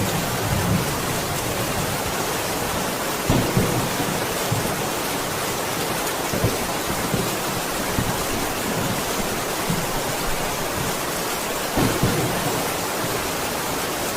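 Steady heavy rain falling, a constant hiss, with a few short, louder low thuds from drops or a distant rumble.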